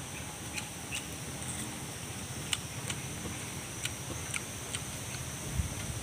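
Faint, irregular light clicks and ticks, a few a second, as a raw papaya stem is dipped and stirred in a ceramic bowl of chili sambal, over a steady high background hiss.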